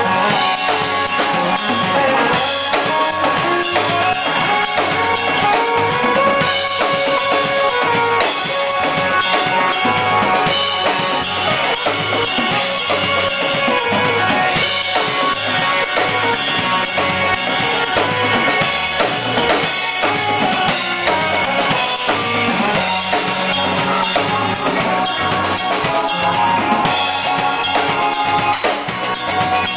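Live band playing loudly, the drum kit keeping a steady beat under sustained instrument chords.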